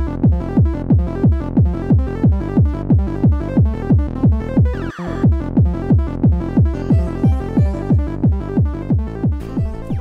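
Electronic dance background music with a steady kick drum, about four beats a second, and a short break with a sweep about five seconds in.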